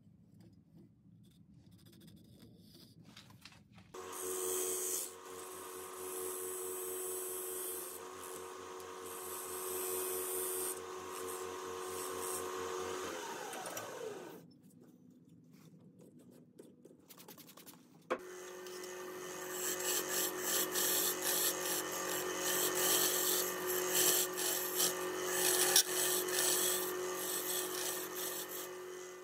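Wood lathe motor running with a steady hum while a tool scrapes the sumac workpiece; about halfway through the lathe winds down in falling pitch, stays quiet a few seconds, then starts again and a tool cuts inside the hollow tube, louder than before.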